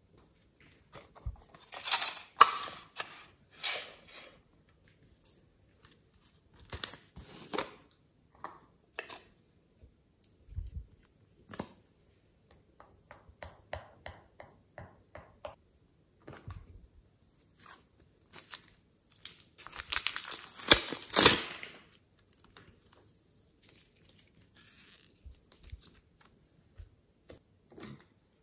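Plastic crinkling and rustling as clay piping bags and plastic slime containers are handled, in short irregular bursts, the loudest and longest about twenty seconds in.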